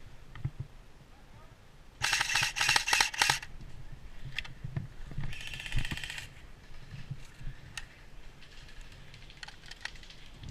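Airsoft electric gun (AEG) firing a full-auto burst of rapid mechanical clicks with a gearbox buzz, lasting about a second and a half. A shorter, fainter burst follows a couple of seconds later.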